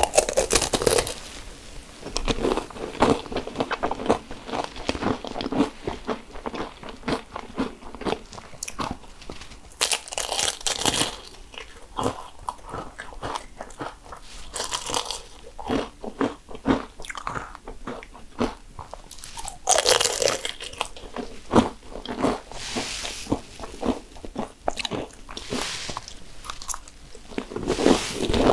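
Biting into and chewing cannoli: the crisp fried pastry shell crunches loudly with each bite, a fresh bite every few seconds, with crackly chewing in between.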